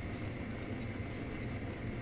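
Steady hiss of a lit gas hob burner heating a saucepan of oat milk.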